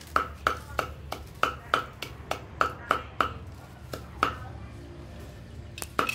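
Heavy cleaver chopping dried red chillies on a wooden chopping block: sharp knocks of the blade through the chillies into the wood, about three a second. The chopping pauses for about two seconds after the middle, with a single knock in between, and starts again near the end.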